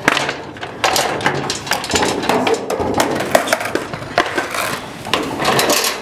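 Steel chain rattling and clinking against aluminum bench frames while a skateboard caught behind it is tugged and knocked against the metal: a steady run of clinks and knocks.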